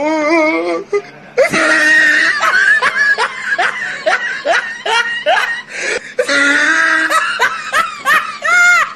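A person laughing hard: long runs of quick ha-ha pulses, broken by a short pause about a second in and again around six seconds in.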